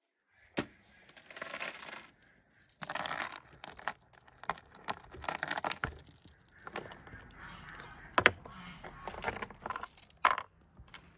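Links of a steel chain clinking and rattling together in irregular bursts as the chain is pulled through a whole raw chicken, with one sharp clank about eight seconds in.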